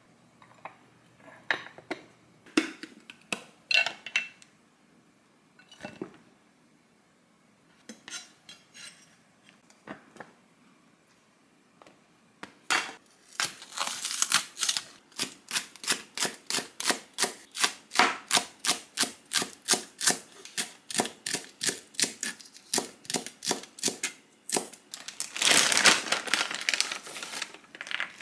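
Chef's knife chopping green onion on a cutting board, a steady run of sharp strokes about three a second through the second half. Before it, scattered light clinks and knocks of glass and ceramic rice containers being handled. A denser burst of noise comes near the end.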